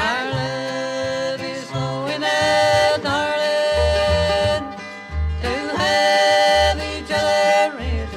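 Bluegrass band music from a 1970s vinyl record: an instrumental break of long held melody notes, each slid up into, over upright bass and banjo.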